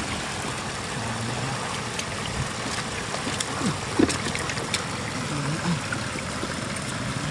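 Shallow floodwater trickling and flowing along a muddy channel, with a sharp splash about four seconds in.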